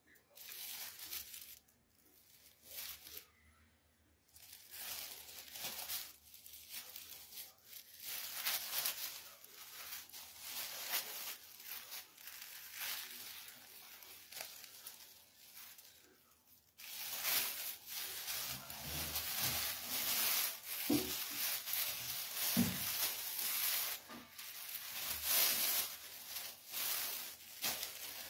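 Thin plastic bags crinkling and rustling as they are moved about, in irregular bursts that grow denser and louder about two-thirds of the way through.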